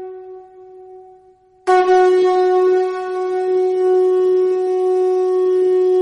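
Conch shell (shankh) blown in one long, steady note that fades away, then starts again abruptly about a second and a half in and is held.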